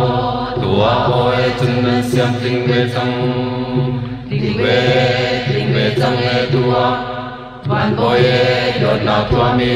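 Chin traditional vocal music: voices singing long, chant-like held notes in phrases, with a short break between phrases about three-quarters of the way through.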